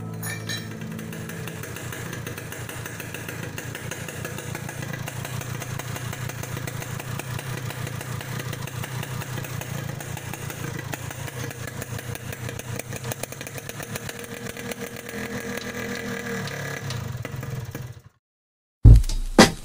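Restored Yamaha RX-King's single-cylinder two-stroke engine idling steadily with a rapid firing rhythm. It cuts off abruptly near the end, and loud music comes in.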